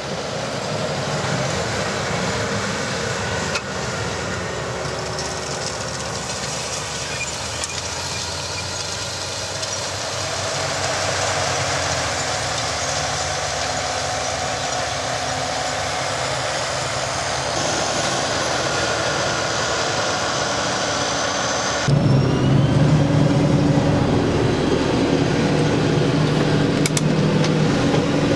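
John Deere 7530 tractor's six-cylinder diesel running steadily under load while pulling a Kuhn Speedliner 4000 seed drill across the field, heard from outside with a steady hiss over the engine. About three-quarters of the way through the sound changes suddenly to a louder, deeper engine drone, heard from inside the tractor's cab.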